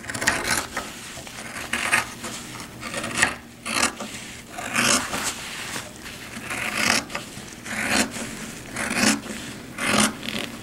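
PUL fabric and a zipper being handled and trimmed with scissors: irregular rasping, rubbing strokes, roughly one every second.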